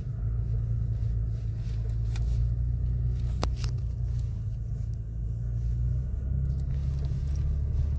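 Toyota Tacoma pickup crawling up a steep rocky incline, its engine and drivetrain a steady low rumble under load. A sharp click comes about three and a half seconds in, with a few fainter ones around it.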